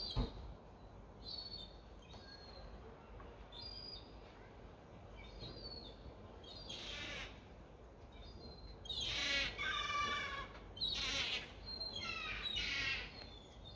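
Gulls calling over and over in short, harsh, squealing cries. The calls are sparse at first and come thicker and louder from about nine seconds in. There is a short knock right at the start.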